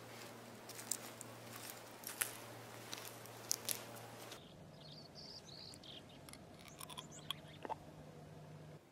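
Faint scattered crackling and crunching clicks, with the background changing about four seconds in, followed by a few short high chirps among the clicks.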